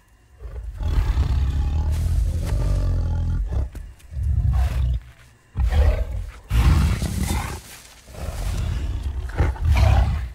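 Deep, animal-like roars in several long bursts separated by short gaps.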